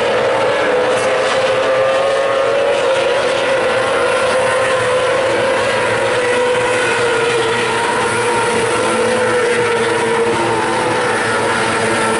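Formula 500 speedway cars racing as a pack: several engines at racing revs blend into a steady drone whose pitch wavers slightly as they circle.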